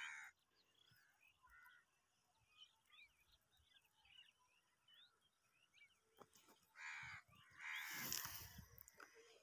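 Faint bird calls: one short call at the very start and two more about seven and eight seconds in, with soft chirps between. The last call comes with a brief rustle.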